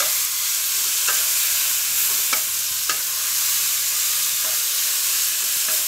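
Onion, minced pork, tomato and cucumber sizzling as they stir-fry in a non-stick pan, with a wooden spatula scraping and turning them every second or so.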